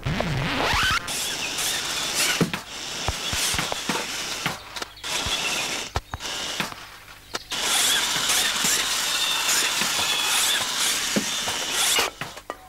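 Cartoon sound effect of a remote-controlled toy car's small electric motor whirring as it drives, rising in pitch as it starts. It runs in several spells with short stops between them.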